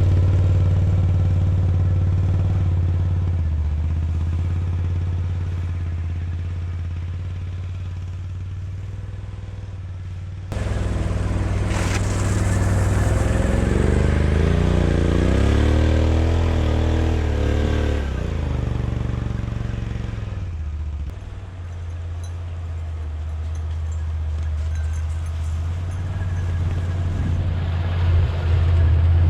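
ATV engine running, fading gradually over the first ten seconds. After a sudden jump in loudness about ten seconds in, it revs up and down several times before settling back to a steady run.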